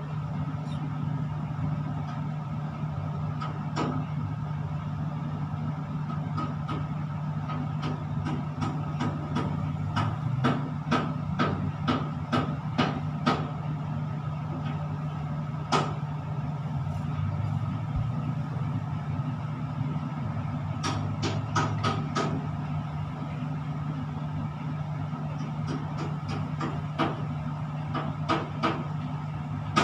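Steady low machinery hum inside a tower crane's operator cab, with irregular sharp clicks and knocks, several coming in quick bunches.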